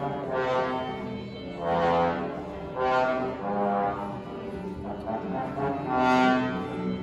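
Orchestra instruments in the pit, brass most prominent, sounding long swelling held notes that rise and fade about four times, as the players warm up before the performance.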